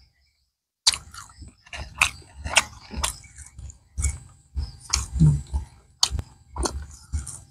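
Close-miked chewing of steamed balut (fertilized duck egg), wet smacking and crunching strokes at about two a second, starting about a second in.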